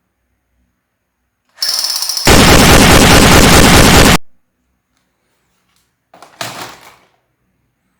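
Toy gun sound effect: a short lead-in, then about two seconds of very loud, distorted rapid-fire noise that cuts off, followed by a shorter, quieter burst near the end.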